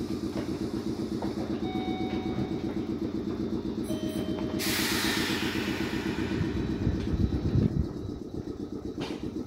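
Red Meitetsu electric commuter train standing at the platform, its underfloor equipment running with a fast, steady pulsing drone. A little after halfway comes a strong hiss of released air, then a louder low rumble just before the drone eases near the end.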